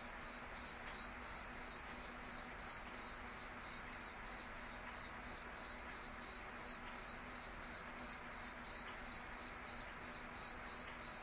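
A cricket chirping steadily in a high, even rhythm of about three chirps a second.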